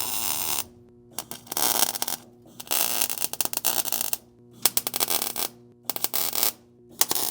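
MIG welder laying short tack bursts on thin, rust-thinned automotive sheet metal. There are about six bursts of crackling, sizzling arc noise, each up to about a second and a half long, with brief pauses between them.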